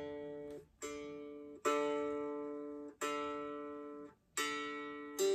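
Custom electric baritone ukulele, played unplugged, strummed in a slow run of about five chords. Each chord rings for about a second before the strings are damped.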